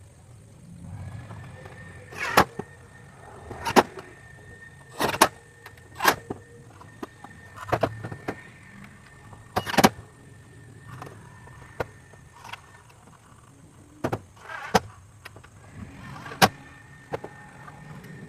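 About a dozen sharp knocks at irregular intervals, roughly one every second or two, some with a brief ringing, from carpentry work on a lean-to shed roof.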